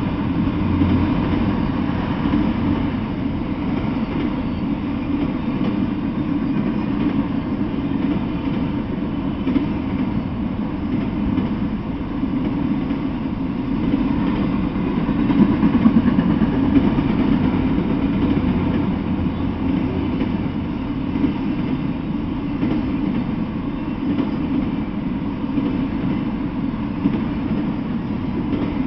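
Freight train of autorack cars rolling past on the tracks, a steady rumble of steel wheels on rail. The last car goes by near the end.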